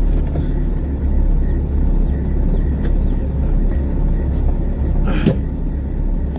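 Steady low road and engine rumble heard inside a moving car's cabin. A brief, sharper noise comes about five seconds in.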